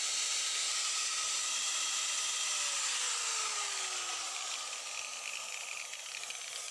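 Electric angle grinder with a thin cutting disc running free, off the work: a steady high whine and hiss, with a lower tone that falls steadily in pitch from about two seconds in, and the sound easing slightly toward the end.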